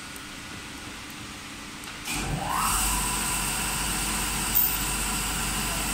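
An electric motor starts about two seconds in, its whine rising quickly, then runs steadily with a high hiss. One short click sounds later on.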